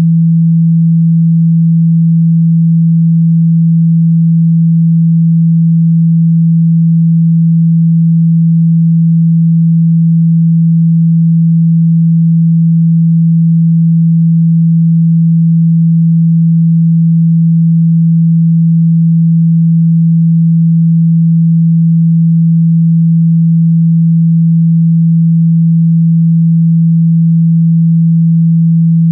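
A loud, steady, low pure sine tone, held unchanged without a break: a speaker-cleaning tone, played to vibrate water and dust out of a phone speaker.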